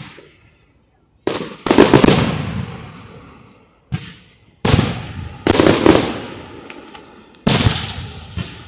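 Aerial firework shells bursting: about half a dozen sharp bangs, each dying away in a rolling rumble over a second or more. The loudest two come close together near two seconds in.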